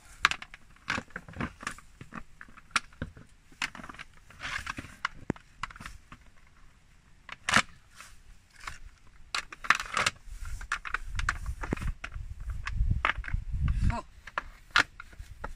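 Plastic off-road recovery traction boards clattering as they are pulled apart and handled: an irregular string of sharp clicks and knocks, with a low rumble in the second half.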